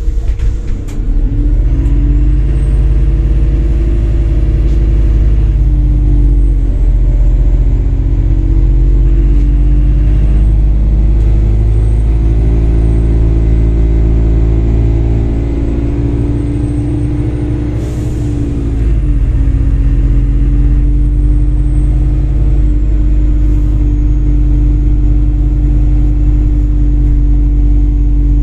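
MAZ-203 city bus engine heard from inside the cabin, its note rising as the bus pulls away from a stop and gathers speed, with several steps in pitch along the way. A few sharp clicks come right at the start.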